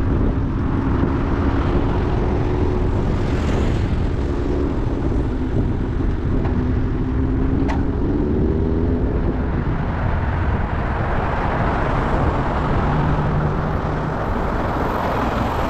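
Wind rushing over an action camera's microphone while cycling on a road, with the engine drone of a motor vehicle close by during the first half.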